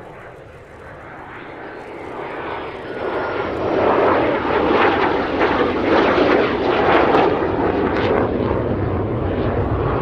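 A Saab SK37 Viggen's Volvo RM8 jet engine passing overhead. The noise builds over the first few seconds to a loud rumble with crackling, then holds loud through the rest.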